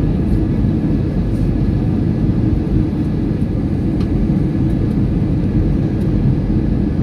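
Steady low rumble of an airliner's cabin noise, engine and airflow noise heard from inside the passenger cabin in flight.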